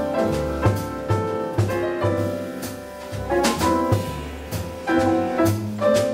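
Jazz piano trio playing: grand piano chords over upright double bass notes about twice a second, with drum kit and cymbal strikes.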